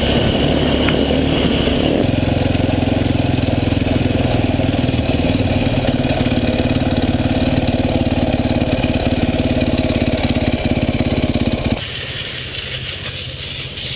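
KTM dirt bike engine running at a low, steady speed. Near the end the engine cuts off abruptly and a quieter spatter of water from a garden hose on the bike takes over.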